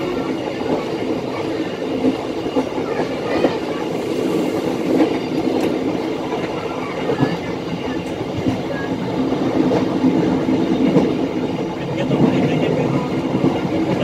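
Passenger train running on the rails at about 70 km/h, heard from inside the cab: a steady rumble of wheels on track with irregular clacks.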